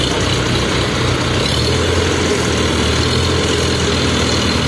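Heavy diesel engine of construction machinery idling steadily; about a second and a half in, its low hum shifts and grows stronger.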